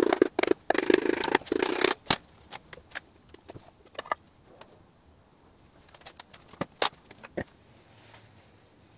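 Metal scraping and rattling for about two seconds, then scattered clinks and taps, as the unbolted front cover of a flathead V8 engine is worked off.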